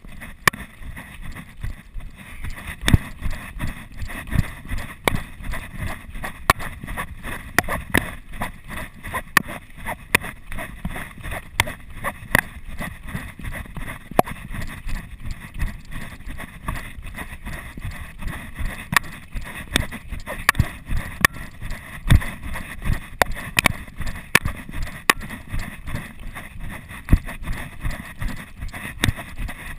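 Running footsteps thudding on a dirt trail in a steady fast rhythm, several strides a second, picked up through a chest-mounted GoPro Hero 2 so that each footfall jolts the camera.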